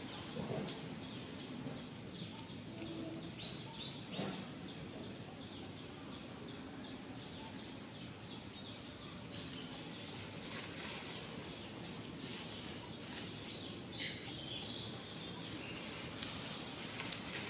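Outdoor ambience with small birds chirping on and off over a steady background hiss. A couple of brief soft knocks come about half a second and four seconds in, and a louder spell of high chirps comes about three-quarters of the way through.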